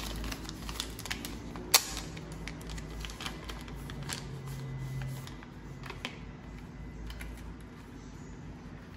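Foil drip-coffee packet crinkling and crackling as it is handled and opened, with one sharp crack about two seconds in. The crackling thins out over the last few seconds.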